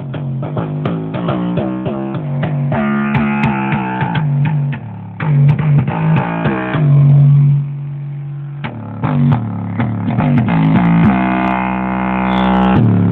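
Guitar and bass music played loud through a Volkswagen Gol's car sound system: quick plucked notes, a held low note midway, and a sustained chord near the end.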